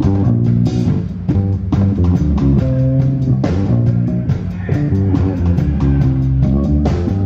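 Heavy metal band playing live and loud: electric guitars and bass guitar over a drum kit.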